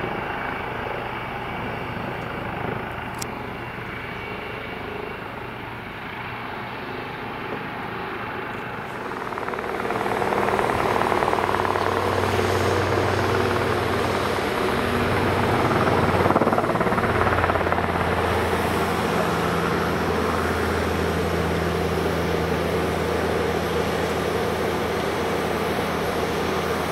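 Eurocopter EC 135 P2+ twin-turbine helicopter running with its rotor turning as it lifts off. About nine seconds in, a small two-bladed light helicopter hovering low takes over, a louder steady engine and rotor sound.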